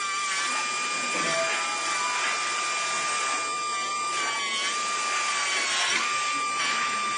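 Dental straight handpiece running with a steady high whine, its bur grinding excess acrylic off a provisional crown, with scratchy grinding bursts. The whine sags briefly in pitch about six seconds in as the bur is pressed into the acrylic.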